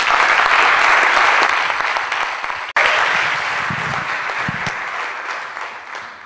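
Audience applauding, a dense steady clapping that cuts out for an instant nearly three seconds in, then carries on and fades near the end.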